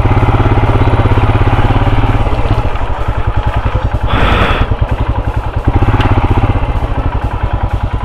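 Motorcycle engine running at low revs, a steady low pulsing throb as the bike rolls slowly along. A short hiss comes about four seconds in, and a single click about two seconds later.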